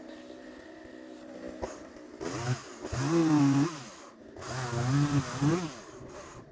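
Chainsaw idling, then revved up twice, its engine pitch climbing, holding and falling back each time.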